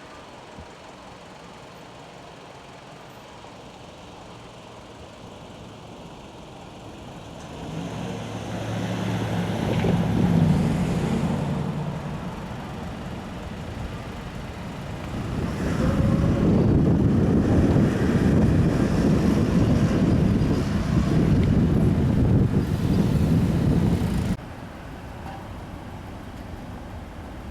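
Vehicles passing at a railway level crossing: one passes with a rise and fall a third of the way in, then a louder, longer pass with a dense low rumble begins just past halfway and cuts off suddenly near the end.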